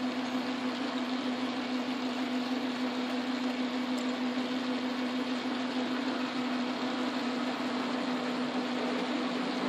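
Metal lathe running at a steady speed with a constant hum, while a large twist drill in the tailstock bores into the spinning workpiece.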